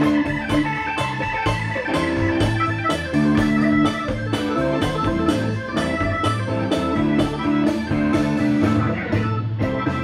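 Live Latin-rock band playing, with an organ in the lead over a repeating bass and chord figure, drum kit and timbales and other percussion keeping a steady groove.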